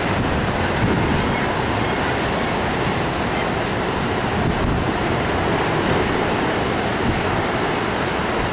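Heavy storm surf breaking and churning against the shore, a steady roar mixed with strong wind buffeting the microphone.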